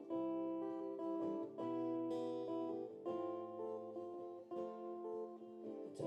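Acoustic guitar strumming chords in a steady rhythm, the instrumental opening of a song before the vocals come in.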